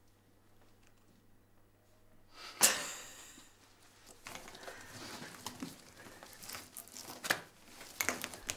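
Plastic tubing and a surgical gown rustling and crinkling as the tubing is pulled and untangled from around a pair of shoes, starting with a sudden loud rustle about two and a half seconds in, then irregular crackles with a few sharper snaps.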